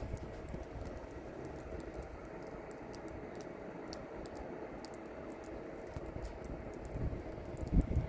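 Blizzard wind rumbling on the microphone with scattered faint ticks; a stronger gust hits near the end.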